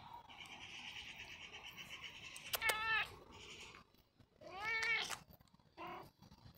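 Domestic cat meowing: two drawn-out meows about two seconds apart, each rising and falling in pitch, then a short, brief call near the end.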